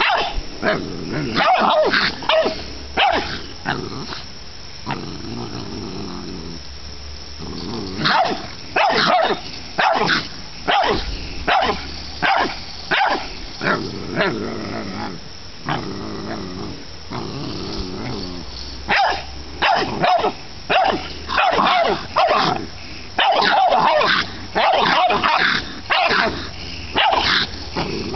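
Dogs barking at a raccoon shut in a wire live trap: runs of sharp barks, with stretches of low growling between them.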